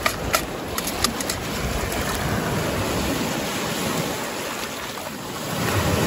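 Small Lake Michigan waves lapping and washing over a pebble beach at the water's edge, a steady wash with a few sharp clicks in the first second and a half.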